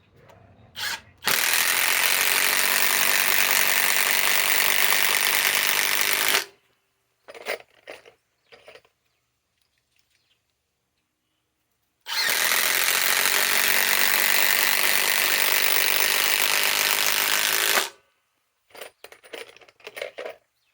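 Milwaukee M18 Fuel 3/8-inch compact impact wrench hammering as it drives long timber screws. It runs in two bursts of about five seconds each, with a few short handling clicks between them.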